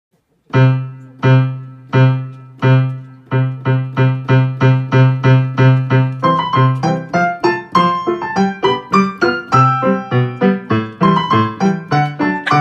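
Background piano music: one low note repeated slowly, then quickening, with a higher melody joining about halfway through.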